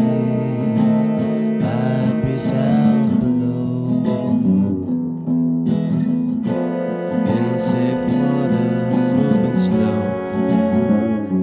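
Background music with guitar, its notes held and overlapping.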